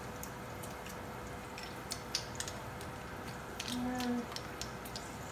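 Scattered light clicks and taps of a metal garlic press being handled and worked over a cooking pot, with a faint steady hum underneath.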